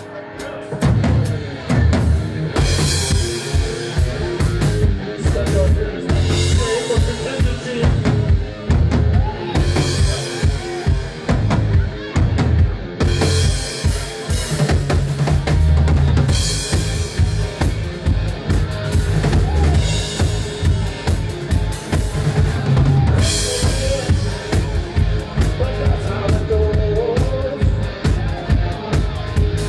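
Live rock band playing: a drum kit pounding out a beat on bass drum and snare under electric guitar and bass guitar, with no vocals yet.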